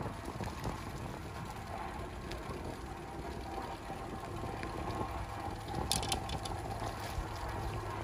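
Wind rumbling on the microphone, with a short crackle about six seconds in.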